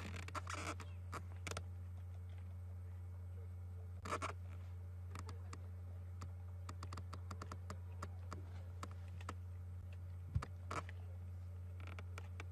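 Leopard feeding on a steenbok carcass, irregular crunching and clicking as it chews bone and gristle, more densely in the middle, over a steady low hum.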